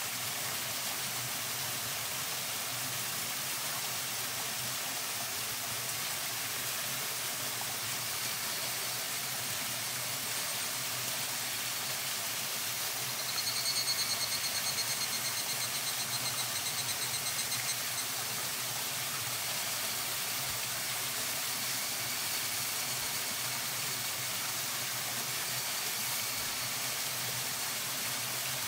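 Wood campfire burning with a steady hiss. About halfway through, a high pulsing trill comes in for a few seconds.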